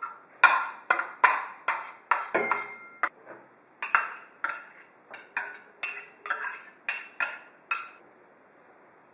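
Metal spoon scraping and tapping chopped parsley out of a bowl, then minced garlic out of a ceramic ramekin, onto a plate: a run of sharp clinks, about two a second, that stops about eight seconds in.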